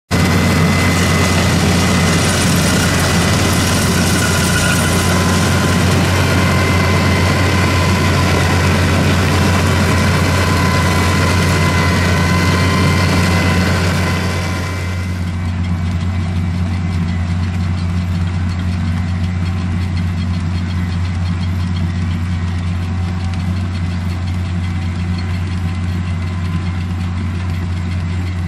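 Diesel engine of a Dewulf Mega R3000 self-propelled potato harvester running steadily under load while lifting potatoes. A broad higher-pitched noise that sits over the engine drops away sharply about halfway through, leaving the low engine hum.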